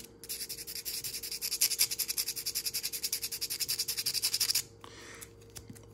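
320-grit sandpaper rubbed by hand on the carbon brush of a Corvette C3 power window motor, in quick back-and-forth strokes of about seven a second that stop a little over a second before the end. The light sanding cleans gunk off the brush's contact face, where the motor takes its current.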